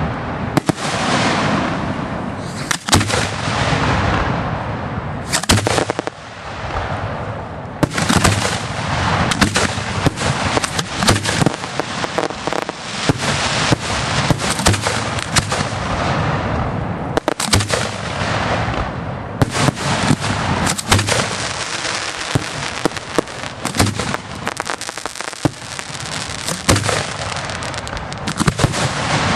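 Aerial fireworks shells bursting overhead in a rapid, nearly unbroken run of sharp bangs and booms.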